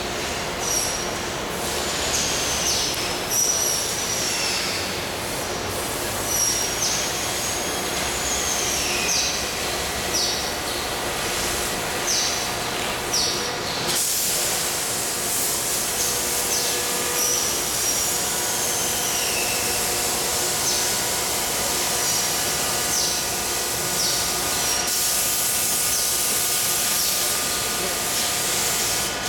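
Workshop machinery noise: a steady hum with repeated short, high squeals, and a strong even hiss that comes in about halfway and stays.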